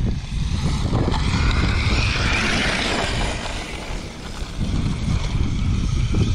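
Arrma Mojave 8S RC car's brushless motor and drivetrain whining as it runs, swelling and fading again around the middle, over a steady rumble of wind on the microphone.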